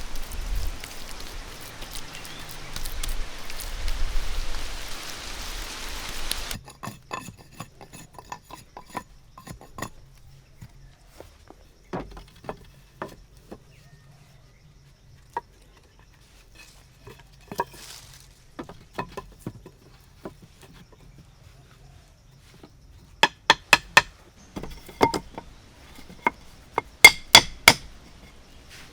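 A steady hiss with low thuds that cuts off suddenly after about six seconds. Then mostly quiet, with scattered light taps and two quick runs of sharp, ringing clinks near the end, like hard utensils knocked against cookware.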